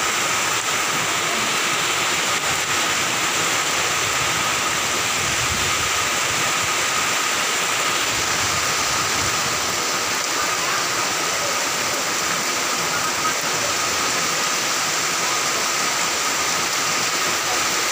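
Heavy rain pouring steadily, a dense, even hiss of downpour that never lets up.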